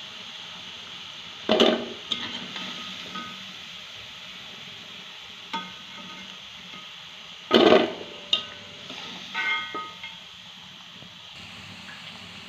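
Chana dal batter lumps deep-frying in hot oil in a kadai, a steady sizzle. A slotted steel ladle clanks against the pan twice, loudest about a second and a half in and again about seven and a half seconds in, with lighter metallic clinks that ring briefly.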